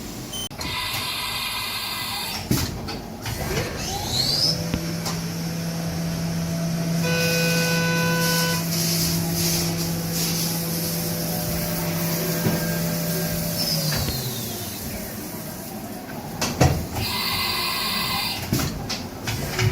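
Haas Super VF-2SS machining centre spindle speeding up with a rising whine about four seconds in, running at a steady high speed for about ten seconds, then spinning down. Shorter bursts of mechanical machine noise come near the start and near the end.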